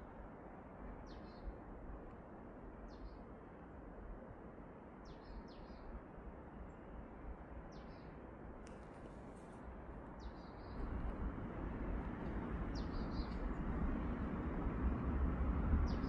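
Small birds chirping: short, high chirps every second or two over steady outdoor background noise, which gets louder with a low rumble about ten seconds in.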